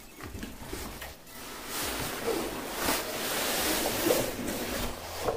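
A black padded carry case being slid out of its cardboard box, cardboard and fabric scraping and rustling, loudest in the middle seconds.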